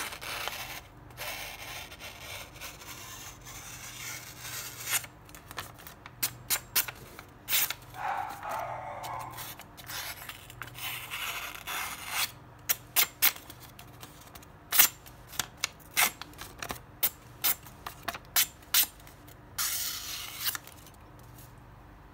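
Damascus-steel Santoku chef's knife slicing through sheets of paper held in the hand: a run of crisp, short cutting strokes with a few longer drawn slices, the busiest flurry of quick strokes in the second half. The paper rustles as it is held and cut.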